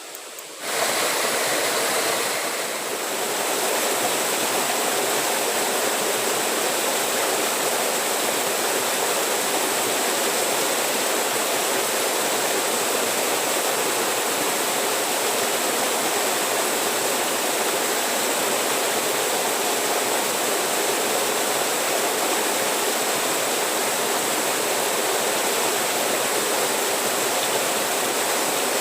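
Steady rush of flowing water that begins abruptly about a second in, with a thin steady high tone above it.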